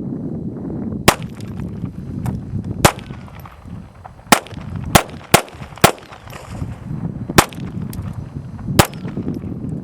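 Smith & Wesson Model 41 .22 LR target pistol firing about eight single shots at an uneven pace, three or four of them in quick succession around the middle.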